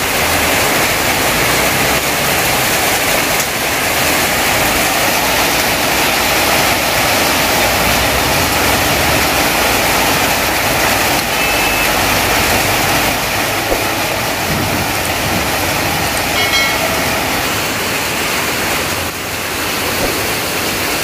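Heavy rain pouring down onto tarpaulin awnings and a flooded street, a loud, steady, dense hiss. A vehicle horn sounds briefly about three-quarters of the way through.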